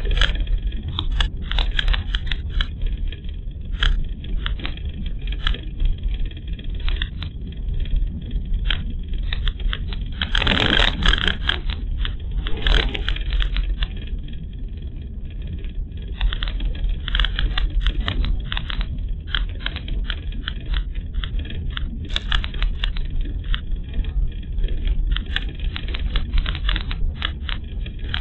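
Car interior noise picked up by a dashcam's microphone while driving on a rough rural road: a steady low rumble of road and engine, with frequent clicks, crackles and rattles. A louder rough rush comes about ten seconds in.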